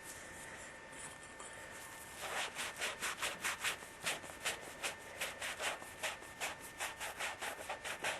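Emery cloth rubbed briskly back and forth around the end of a copper pipe, scrubbing it clean before flux and solder. The strokes start about two seconds in and come quickly and evenly, three or four a second.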